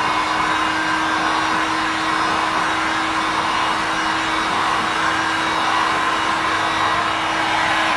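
Electric heat gun blowing hot air steadily, a rush of air over a low motor hum, as it dries freshly brushed plastic primer on a car's paint repair. It cuts off at the end.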